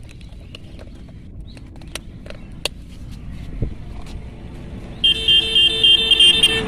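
Vehicle horn beeping rapidly, about four short high-pitched beeps a second, starting about five seconds in, over a low background rumble with a few faint clicks.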